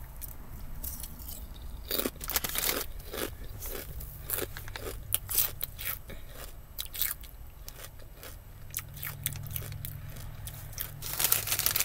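A person crunching and chewing kettle-cooked potato chips: an irregular run of crisp crunches, starting about two seconds in.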